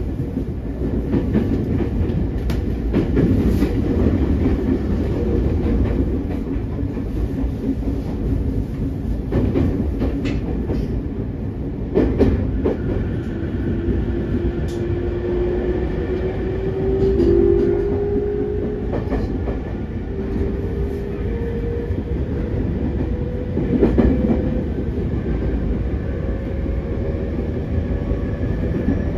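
Cabin running sound of a JR East E231-3000 series electric train: a steady rumble of wheels on rail with occasional clacks. From about halfway, a whine from the traction motors rises slowly in pitch as the train gathers speed.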